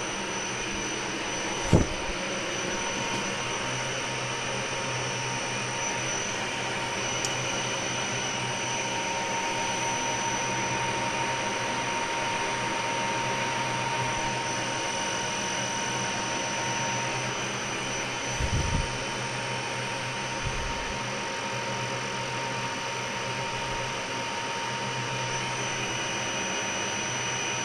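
CNC milling machine running with its spindle on: a steady mechanical hum with a faint high whine. A brief sharp knock comes about two seconds in, and a low bump about two-thirds of the way through.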